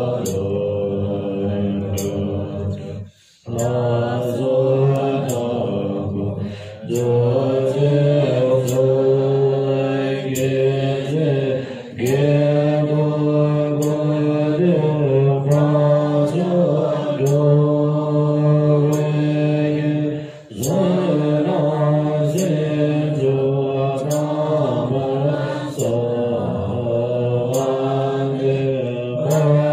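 A group of women chanting Buddhist prayers in unison, a steady, sustained recitation broken by short breath pauses about three seconds in and again about twenty seconds in.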